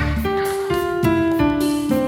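Instrumental music with sustained notes and a bass line, in the sound of piano or keyboard and guitar.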